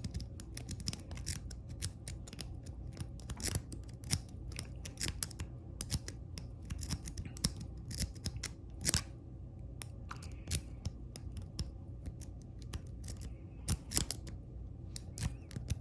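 Steel lock-pick rake scraping and clicking over the pin tumblers in the keyway of a 40 mm laminated Master Lock No. 3 padlock, raked back and forth under tension without opening it. Rapid, irregular small metal clicks, with a couple of sharper clicks about nine and fourteen seconds in.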